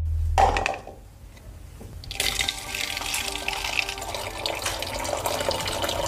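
Drink-dispensing machine pouring liquid into a paper cup, starting about two seconds in and running steadily to the end, after a short, louder sound about half a second in.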